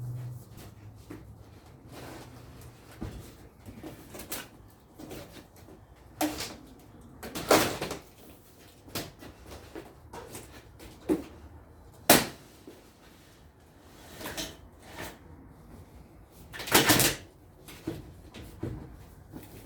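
Scattered knocks and clunks of hands-on work, with quiet gaps between them. A sharp knock comes about twelve seconds in, and longer, louder clunks come around seven and a half and seventeen seconds.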